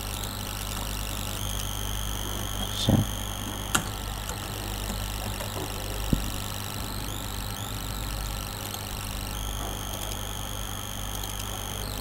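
Steady electrical hum with a high whine that comes and goes, broken by three sharp clicks about three, four and six seconds in.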